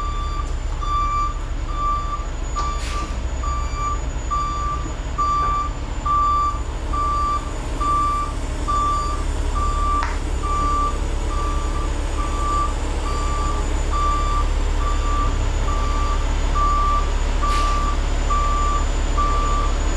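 Truck backup alarm beeping steadily, about one beep a second, over a low engine rumble, with a few short knocks.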